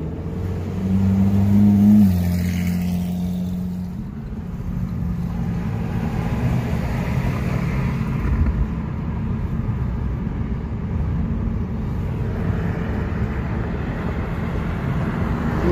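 Car engine and road noise heard from inside a moving car's cabin. The engine note climbs for the first two seconds, drops, and then settles into a steady cruising rumble with tyre and road noise.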